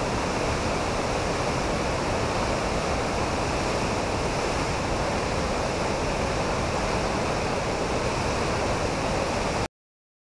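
Steady, loud rushing of a swollen whitewater river churning over boulders. Cuts off abruptly near the end.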